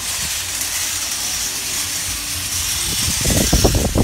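Steady hiss of a moving car's wind and road noise, heard from inside the cabin, with louder low rumbling setting in near the end.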